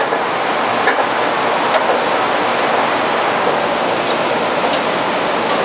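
A steady, loud rushing background noise, with a few faint light ticks as the steel bandsaw blade is pulled out through the machine.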